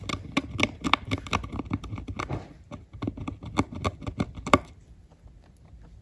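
A guinea pig munching dry hay, heard close up as quick runs of crunchy clicks. The clicks break off briefly about two and a half seconds in and stop about a second and a half before the end.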